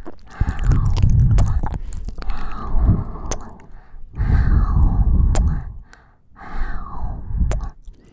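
Close-miked ASMR mouth sounds: wet kissing and sucking smacks right against the microphone, many sharp clicks, among slow swells of warm breath.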